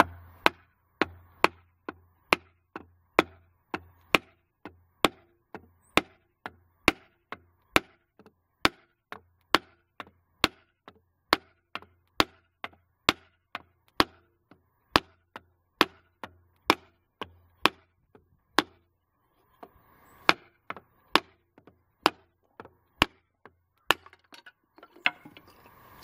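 Wooden baton striking the head of a small Sheffield 12-in-1 hatchet multi-tool, driving its blade through a stick of wood: sharp, evenly spaced knocks about two a second, with a short break about three-quarters of the way through.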